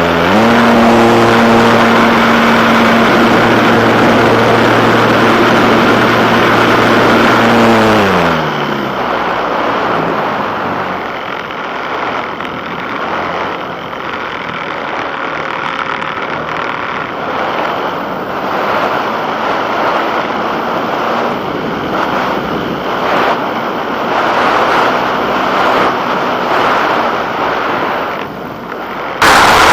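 An engine running steadily at a fixed pitch, then winding down about eight seconds in. After that comes a steady rush of wind or motion noise with scattered light knocks, which jumps suddenly louder near the end.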